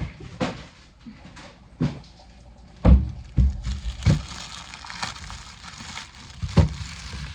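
Kitchen items being handled: a series of knocks and clunks, with a dry rustling from about halfway through, like packaging or a plastic bag.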